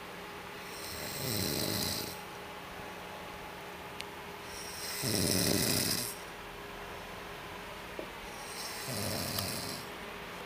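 A sleeping man snoring: three snores about four seconds apart, the middle one the loudest.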